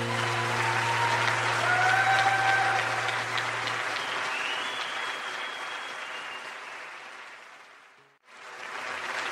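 Concert audience applauding as a song ends, the last sustained guitar note dying away in the first few seconds. The applause fades down to a moment of silence near the end, then comes back in.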